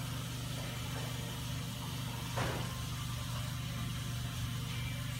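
Steady low machine hum, with one brief short noise about two and a half seconds in.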